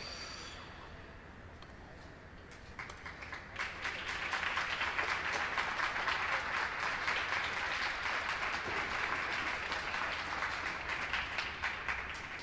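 Small audience clapping: scattered claps start about three seconds in, swell into steady applause, and fade near the end.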